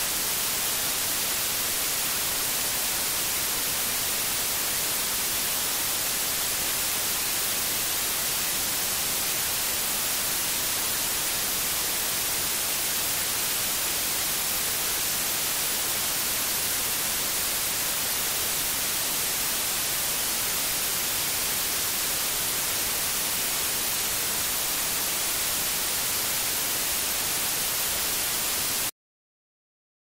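White noise calibration test signal: a steady, even hiss that cuts off abruptly near the end.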